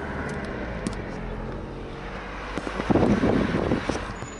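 Car driving, heard from inside the cabin: a steady hum of engine and road noise, with a louder rush of noise about three seconds in.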